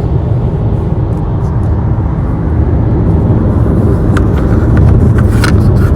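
Steady, loud road and engine rumble of a moving car, heard from inside the cabin, with a few sharp clicks or knocks in the last couple of seconds.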